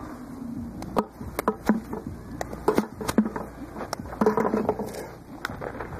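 Softballs tossed into a player's hands and dropping into a plastic bucket: a series of sharp, short knocks a second or so apart.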